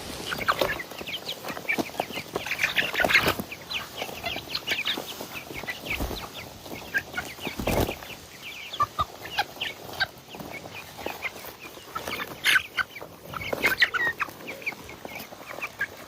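A flock of chickens clucking and cheeping: a steady chatter of short, high calls, with a few knocks and louder bursts of calls near the end.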